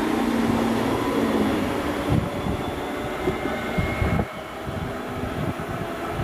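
DB Class 425 electric multiple unit running, with a steady hum for the first second and a half, then low rumbling; the sound drops in level about four seconds in.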